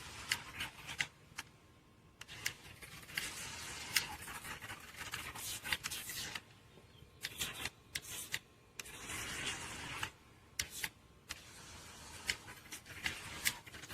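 Small battery RC boat running in water: intermittent splashing and churning, broken by sharp clicks and short quiet gaps.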